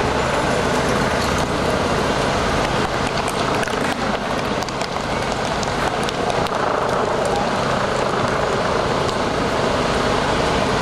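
Steady outdoor street noise at a riot-police line: a continuous rumble and hiss with scattered small clicks and knocks.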